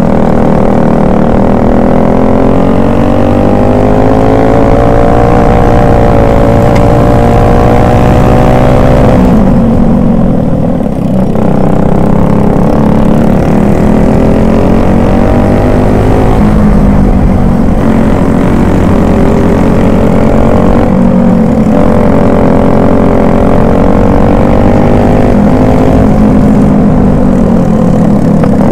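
Racing kart engine heard from onboard, running hard: its pitch climbs steadily along each straight and drops sharply when the driver lifts for a corner, several times over.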